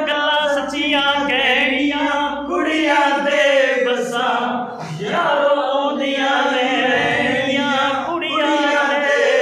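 A man singing a Meena geet, a Rajasthani folk song, in long held notes with wavering ornamentation.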